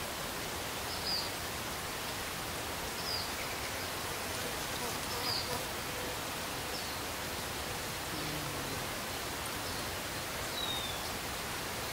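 Outdoor forest ambience: a steady hiss with a short, high, slightly falling chirp every two seconds or so.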